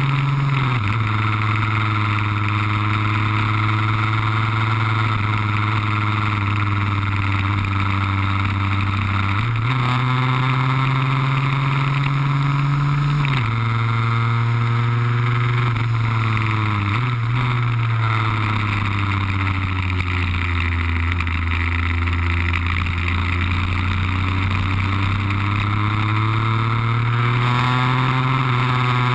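Lambretta cut-down scooter's RB20 two-stroke single running at speed. The engine note falls and climbs several times as the throttle is opened and closed: it drops near the start, rises about nine seconds in, drops again a few seconds later, sags low through the second half and climbs again near the end.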